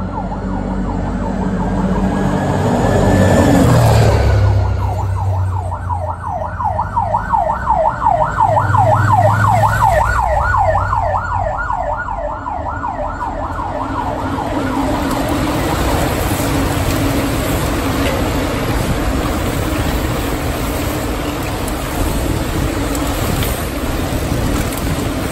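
A siren wailing, then switching to a fast yelp of about four rising sweeps a second, with a loud low vehicle rumble about four seconds in. The siren stops at about thirteen seconds. After that, a steady rattling hiss of many mountain-bike tyres on cobblestones as the pack of riders comes past.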